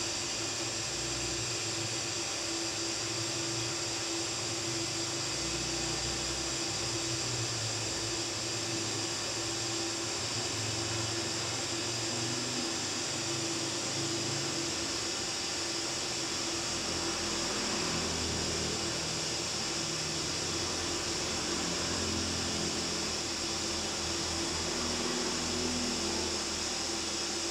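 TIG welding arc from a Daesung MIG-120 SE inverter welder in lift-TIG mode at 100 amps, burning on 3 mm stainless steel plate under argon: a steady hiss over a constant low hum, without a break. The arc is running stable.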